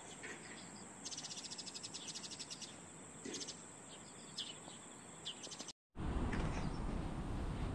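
Birds and insects calling by a creek. A rapid high trill about a second in, lasting over a second, is followed by a few short, high bird chirps. After a sudden cut, a louder steady low noise takes over.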